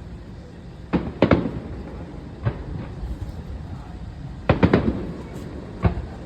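Fireworks display: aerial shells bursting with sharp, echoing bangs. There are about six, coming singly and in close pairs: the first around a second in and the loudest pair near four and a half seconds.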